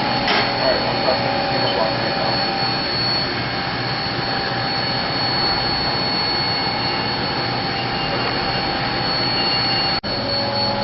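Haas VF-5 vertical machining center running a program under power: the spindle and machine running with a steady high-pitched whine over an even mechanical hum. The sound cuts out for an instant near the end.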